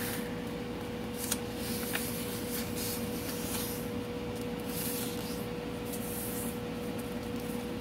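Hands sliding and pressing across a sheet of printer paper folded lengthwise, creasing the fold flat: a series of short papery swishes about a second apart, with a few light taps.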